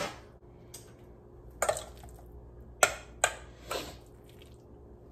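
Metal spoon scraping and clinking in a stainless steel mixing bowl while scooping soft mashed potato filling, about four short scrapes between the middle and near the end.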